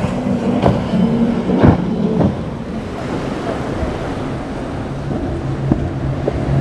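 Outboard motors of a center-console boat running hard through choppy water, a steady engine drone that drops to a lower pitch about halfway through. A few sharp knocks come in the first two seconds.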